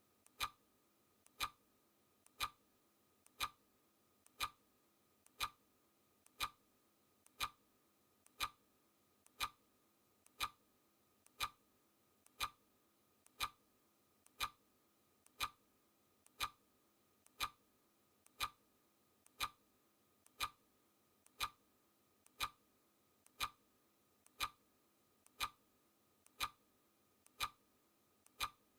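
Clock ticking sound effect: a crisp tick once a second, steady and even, each tick with a faint click just before it.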